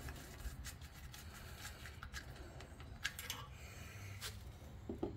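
Faint scattered clicks and light metal scraping from hand work at the bolts holding the stock exhaust tip to the ATV's muffler, with a couple of sharper clicks after about three seconds, over a low steady hum.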